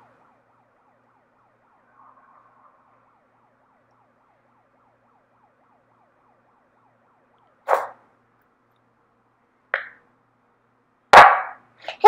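Pyle PMP30 handheld megaphone's built-in siren playing at very low volume: a fast-repeating rising sweep, about four a second. Two sharp clicks come in the second half, and a loud burst just before the end.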